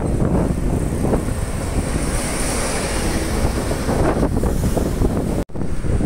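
Wind buffeting the microphone over the low rumble of a coach bus driving past, with road traffic behind it. The sound cuts out for an instant near the end.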